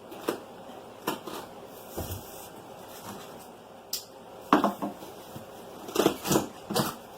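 Irregular knocks, clatters and scrapes from handling a boxed cordless stick vacuum and its packaging while unboxing, with the loudest cluster of knocks near the end.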